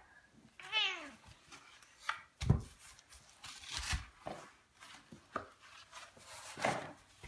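Handling noise: a few knocks and thumps, the loudest about two and a half seconds in, with scraping as a toddler handles a cardboard cat scratcher and the cat tree. About a second in there is one short, arching vocal sound.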